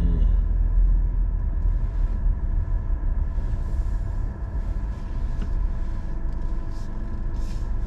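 A car heard from inside its cabin as it creeps slowly forward. There is a steady low rumble with a faint steady hum over it.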